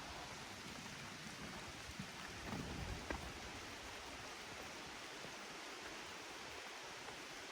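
Steady rain falling, an even hiss, with a brief low thump about two and a half seconds in.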